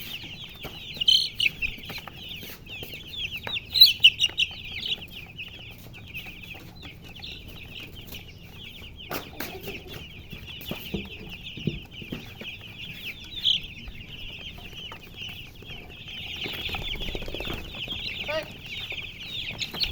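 A brood of baby chicks peeping continuously, many high, short chirps overlapping, with a few louder chirps standing out now and then.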